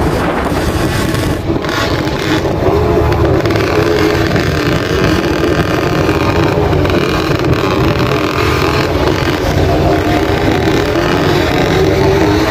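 Motorcycle engine running steadily while riding along, its pitch wavering only slightly, with wind rushing over the microphone.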